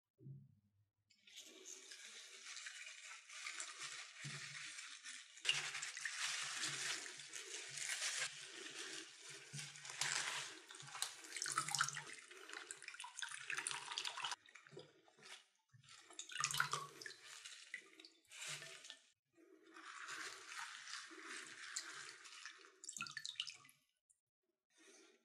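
Kitchen tap running into a sink, water splashing as spinach is rinsed under it, with soft handling knocks. The flow stops briefly a few times.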